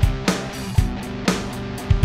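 Electric guitar played through a Hotone RAVO MP-10 on its 'Dist 412 Bass' distortion preset, held distorted notes over a steady drum beat of about two hits a second.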